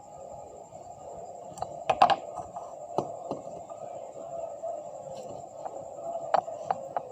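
Scattered sharp clicks and taps of small hard objects, the loudest cluster about two seconds in and a few more near the end, over a steady hum.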